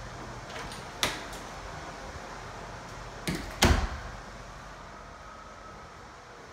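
A door or cupboard door being handled: a sharp click about a second in, then a double knock a little after three seconds, the second knock the loudest.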